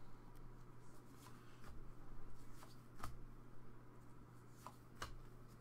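Trading cards being flipped through one at a time in gloved hands: soft slides of card stock and a few light flicks, the clearest about three and five seconds in, over a low steady hum.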